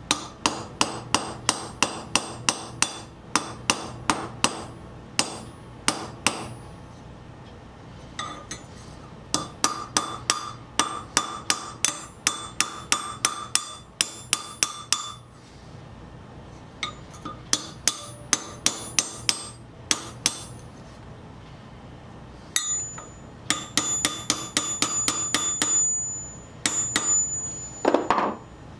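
Small hammer tapping a thin steel pin set in a hole of a flat steel pin-spanner bar on an anvil, driving the pin in. Quick, ringing metal-on-metal taps, about three a second, come in several runs with short pauses between them.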